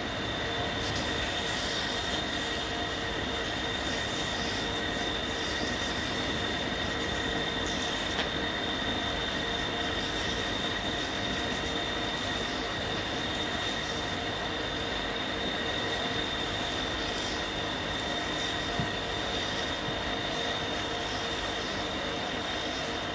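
Small electric bead lathe spinning a wooden bead on a steel mandrel, running with a steady high-pitched whine, with the hiss of sandpaper pressed against the turning bead to polish it.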